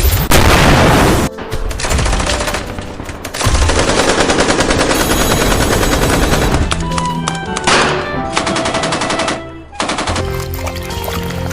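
Rapid machine-gun fire in long bursts, with music underneath.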